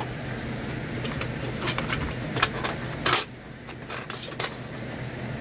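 Small metal tins and hard plastic cases clinking and clattering as a hand rummages through a metal toolbox tray. There are a handful of sharp clicks, the loudest about three seconds in.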